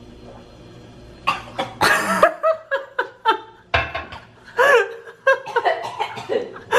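Laughter, and a woman gasping and coughing in reaction to a foul-tasting drink she has just swallowed. It starts about a second in, after a short quiet hum, with sharp breathy bursts, then short rising and falling laughing sounds.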